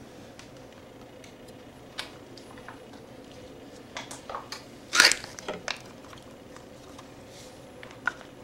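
A cat rubbing and bumping against the camera at close range: scattered soft knocks and rustles, loudest in a cluster about four to six seconds in, over a faint steady hum.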